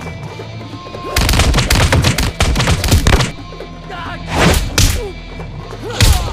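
Martial-arts fight sound effects over background music: a fast flurry of punch and kick impacts for about two seconds, then two separate heavy hits and one more near the end.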